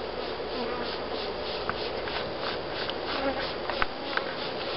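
Honeybees buzzing around an open top bar hive, with single bees passing close by in short pitched buzzes over a steady hum of the swarm.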